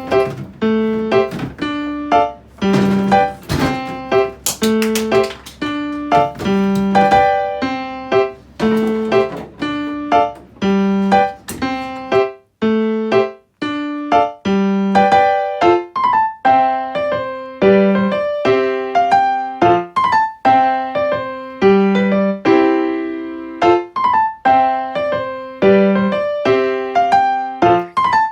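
Background music: a light, steady melody of single notes played on a piano-like keyboard.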